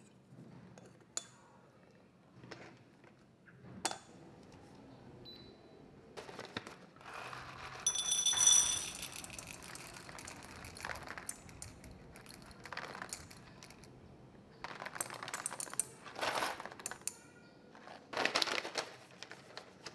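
Coffee beans poured from a paper pouch into a small metal dosing cup, rattling and pinging against the metal in several spells, loudest about eight seconds in. A few light clinks of gear being set down come near the start.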